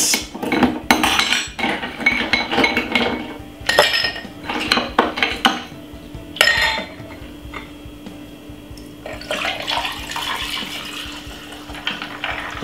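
Ice cubes dropped into a tall drinking glass, several sharp clinks of ice on glass. About nine seconds in, sugar cane juice is poured from a glass measuring jug over the ice, a splashing pour.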